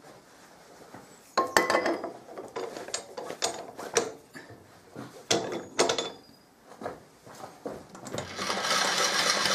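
Metal tools and parts being handled in a workshop: a run of irregular knocks, clicks and clatters. About eight seconds in, a steady, louder noise starts and keeps going.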